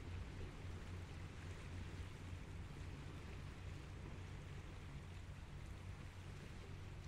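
Steady shoreline ambience: an even low rumble under a soft hiss of water, with no distinct events.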